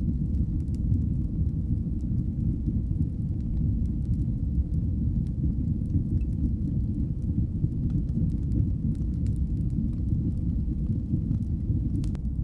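Fire burning in a fireplace: a steady low rumble of flames with faint scattered crackles throughout and a few sharper pops near the end.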